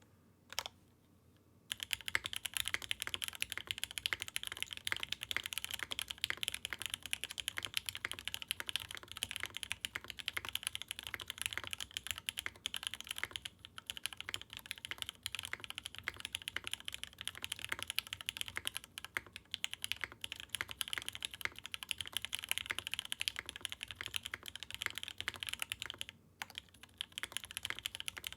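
Continuous fast typing on a Mode Envoy mechanical keyboard fitted with lubed Gateron Blue Bubblegum linear switches, a polycarbonate plate without foam, and GMK keycaps. A dense stream of keystrokes begins after a second or two and pauses briefly near the end. It is a quiet-to-mid-volume, deeper, thocky sound.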